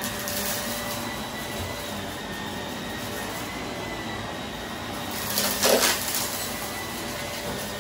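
Vacuum cleaner running steadily over carpet with a high motor whine. About five and a half seconds in comes a louder rush lasting under a second as confetti is sucked up with a crunch.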